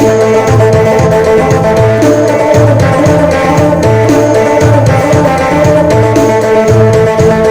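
Isan phin (northeastern Thai lute) music in the phin sing style: a steady held drone under the melody, over a repeating bass line and drum beat.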